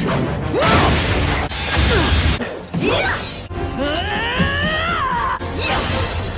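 Cartoon fight-scene audio: music under a run of crashes and impacts, then a drawn-out strained cry from a female voice that rises and falls in pitch about four seconds in.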